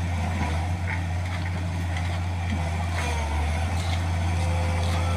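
Wheeled excavator's diesel engine running steadily as it digs and lifts a bucket of dirt.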